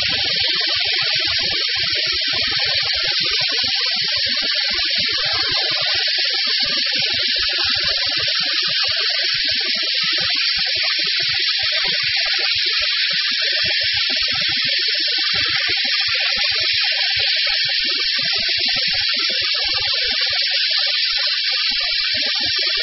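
OMAX abrasive waterjet cutting with its bevel head tilted to 45 degrees: a loud, steady high hiss from the high-pressure jet, with an irregular low crackle underneath.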